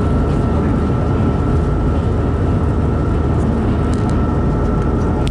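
Sri Lanka Railways S14 class diesel multiple unit running at speed, a steady rumble of wheels and engine with a faint steady whine, heard through an open window with wind buffeting the microphone.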